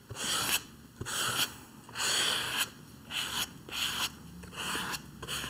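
Rigid plastic card scraping acrylic paint across a sketchbook page, in repeated short strokes a little under two a second.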